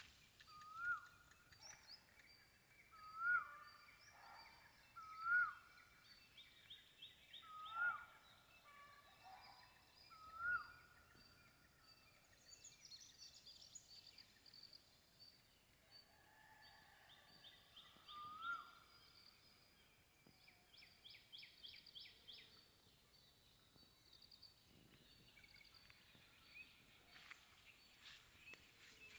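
Birds calling: one bird repeats a short call that rises and then drops back, several times in the first ten seconds and once more later, over fainter, higher chirps and quick trills from other small birds.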